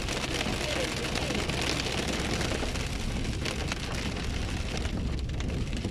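Rain hitting the windshield of a moving car, heard from inside the cabin, over a steady low rumble of tyres on the wet road and the engine.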